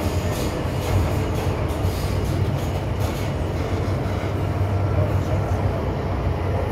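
Cabin noise inside an MTR M-Train car running on the line: a steady low hum with an even rumble of wheels on rail.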